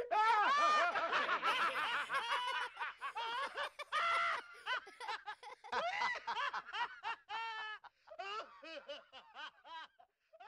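High-pitched laughter in short 'ha' bursts, dense and overlapping at first, then thinning into scattered giggles that fade away near the end.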